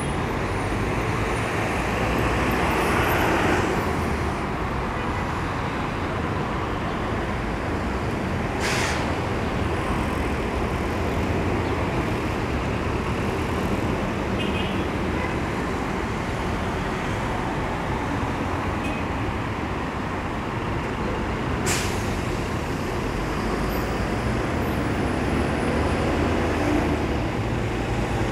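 Steady city street traffic, mostly buses and cars running along the road below, with a louder pass about three seconds in. Two short, sharp hisses of bus air brakes come about nine seconds and twenty-two seconds in.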